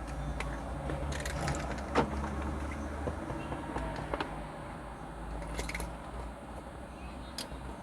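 Small plastic clicks and taps of a car key fob being handled while its coin-cell battery is swapped, with one sharp click about two seconds in and a few lighter ones later, over a low steady hum.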